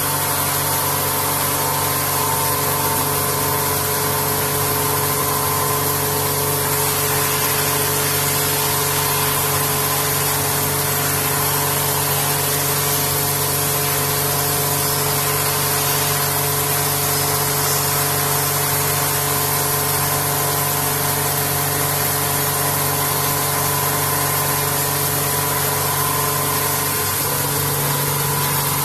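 A vertical machining centre face milling an aluminium part, its spindle and cutter running steadily: a constant machine hum with several held tones over an even hiss.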